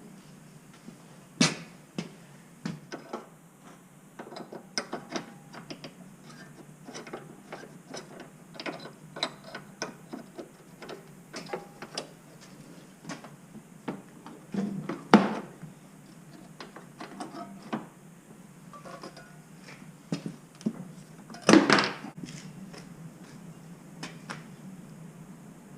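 Scattered clicks, knocks and clatters of hands working with metal parts and tools, with three louder knocks: about a second and a half in, about 15 seconds in, and about 22 seconds in.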